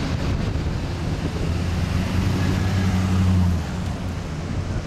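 Steady rushing outdoor noise under a low vehicle engine hum that swells from about a second and a half in and drops off sharply a little past halfway.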